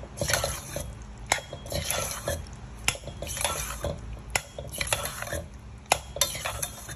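Metal fork stirring thick mashed potato and shredded cheese in a stainless steel pot, in repeated scraping strokes with a sharp clink of the fork against the pot about every second and a half.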